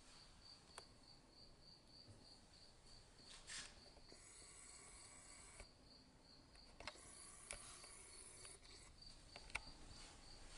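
Near silence: room tone with a faint high tone pulsing about four times a second, and a few soft clicks.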